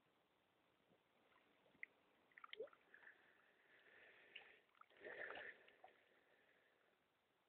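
Faint water sounds of a horse drinking from a dam, its muzzle in the water: small slurps and splashes, a little louder about two and a half seconds in and again around five seconds.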